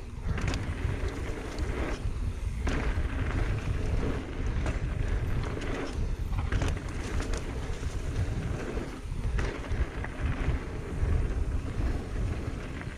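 Mountain bike riding fast down a dirt singletrack: wind buffeting the microphone and tyres rumbling on the dirt, with scattered knocks as the bike hits bumps.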